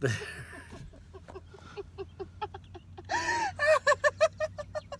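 A group of people laughing hard inside a car: a burst of laughter, then a string of short rhythmic laughs that builds to a loud, high-pitched peal about three seconds in, followed by quick bursts of laughs.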